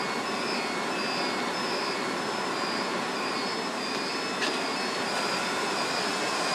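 Steady rushing of data-centre server and cooling fans, with a high-pitched electronic chirping tone breaking in and out over it and one short click a little past halfway.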